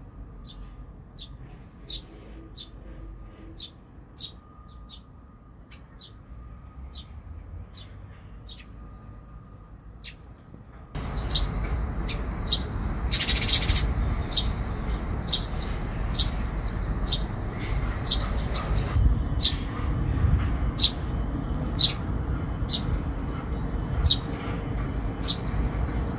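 Eurasian tree sparrow fledglings giving short, high begging chirps, repeated evenly about every two-thirds of a second. A louder chirping burst sounds about thirteen seconds in. A low rumble of background noise rises about eleven seconds in.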